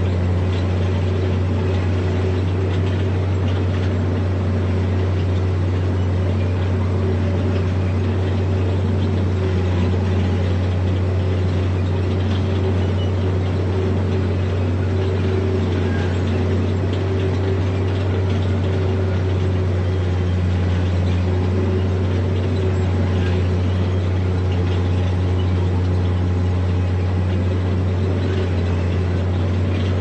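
Diesel engine of heavy earthmoving machinery running steadily, a constant low drone with no pauses or sudden changes.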